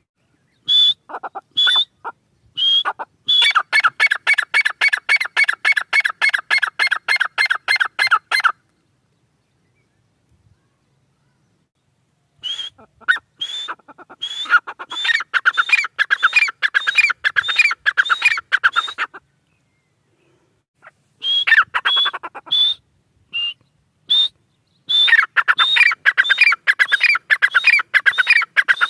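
Grey francolin calling: fast runs of repeated shrill, rising notes, about four a second, in three long bouts separated by pauses of a few seconds.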